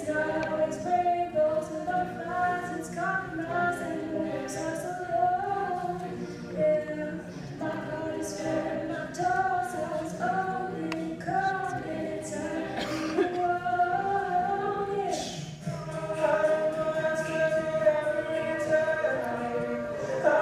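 Mixed choir of male and female voices singing a cappella in sustained close harmony, the chords moving every second or so.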